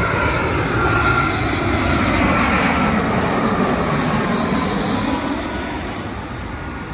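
Jet airliner passing low overhead on landing approach: engine noise with whining tones that fall slowly in pitch as it goes by, growing fainter over the last couple of seconds.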